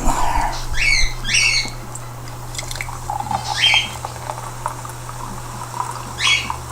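A bird giving four short squawking calls, each falling in pitch, spread over several seconds, over a steady low hum.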